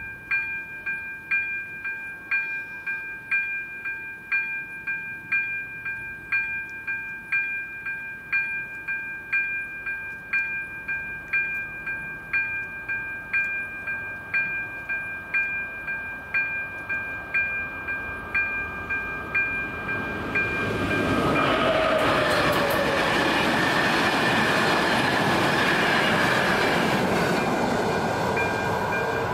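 Level-crossing warning bell striking about once a second. About 20 seconds in, a train passes over the crossing with a loud, even rush of wheels on rail for several seconds, the bell still ringing underneath, before it fades near the end.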